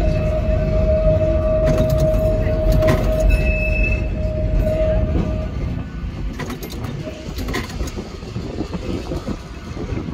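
Blackpool tram running along the track, heard from on board: a steady low rumble with a whine that stops about halfway, and a few sharp knocks.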